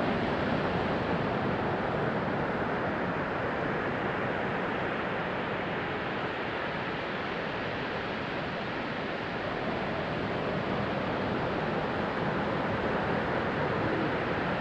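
Sea surf washing onto a beach: a steady rush of waves that swells and eases gently.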